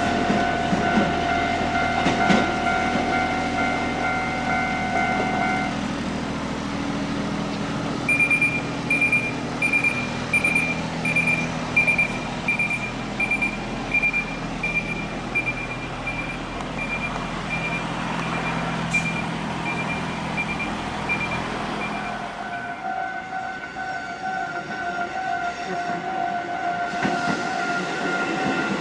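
A Kotoden electric train running by on the line. Steady whining tones at the start stop after about six seconds and come back near the end. In the middle, a row of high-pitched beeps, about one and a half a second, slowly fades away.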